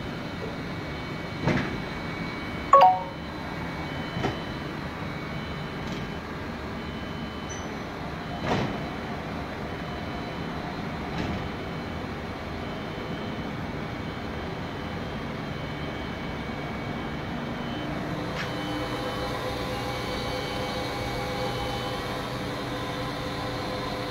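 Steady mechanical hum of a Mori Seiki SV-400 CNC machining center, with several steady tones. Scattered metallic knocks come in the first dozen seconds; the loudest is a ringing clank about three seconds in. Later on the steady tones of the hum grow a little stronger.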